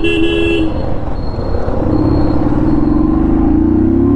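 A short vehicle horn toot at the start, then a Royal Enfield Thunderbird's single-cylinder engine accelerating, its pitch climbing steadily over the last two seconds.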